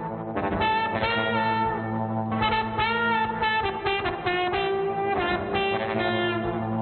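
Trombone playing phrases of short notes, some bending up and down in pitch, over a steady low drone of held notes from a live electronic loop.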